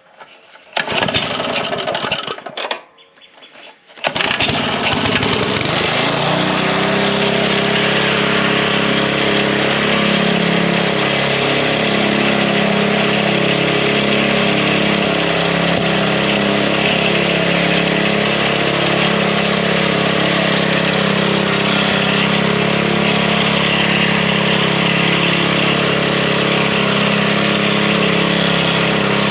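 Small gas engine of a walk-behind bed edger being pull-started: a noisy pull about a second in that doesn't catch, then the engine fires about four seconds in, settles within a couple of seconds and runs steadily. It runs now that the bad, old gas has been cleared from its fuel line.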